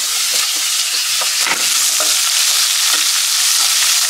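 Chopped onions sizzling as they drop into hot oil in a non-stick pan with fried ginger and garlic. A wooden spatula pushes them off a plate and stirs them, giving several light knocks and scrapes over the steady sizzle.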